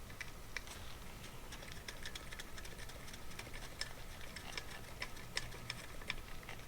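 Light, irregular metal clicks and ticks, several a second, as a 10mm tool works the float needle seat out of a carburetor body.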